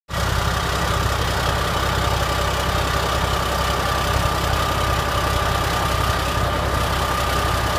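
Iveco Trakker rally truck's diesel engine idling steadily, with a steady high whine over its low rumble.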